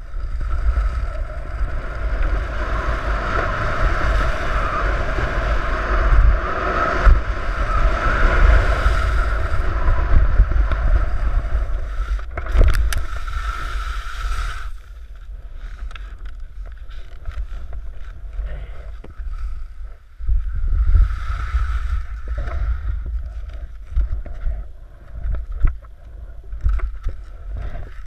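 Wind rushing over a skier's camera microphone and skis scraping over packed snow during a fast run down a slope, broken by a cluster of sharp knocks about twelve and a half seconds in as the skier crashes off a jump. After the crash the rushing stops and only quieter wind buffeting and scuffing remain, with a louder gust a few seconds later.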